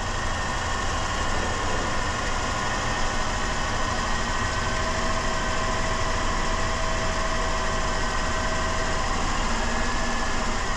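Worn 2007 Dodge Caravan engine running steadily at a slightly raised idle while Seafoam cleaner is drawn into its intake through a vacuum hose, with a steady whine over the engine note.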